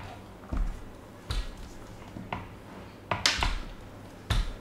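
Saiga .223 short-barrel AK-pattern rifle being handled and turned over on a table: about five short knocks and clicks of the rifle's metal and polymer parts, the loudest a little past three seconds in.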